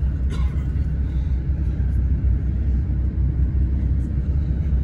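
Steady low rumble of a coach's engine and running gear heard from inside the passenger cabin as the bus moves slowly, with one short tick just after the start.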